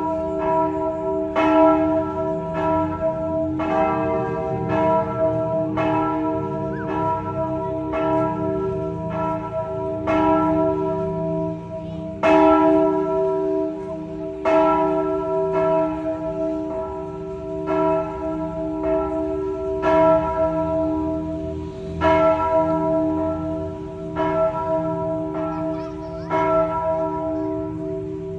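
Church bells ringing, struck every second or two, each stroke ringing on in several steady tones into the next; the strokes come a little more spaced out in the second half.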